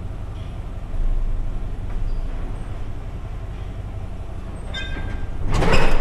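A vehicle engine idling with a steady low rumble. About five and a half seconds in, loud metal clanks and knocks break in over it.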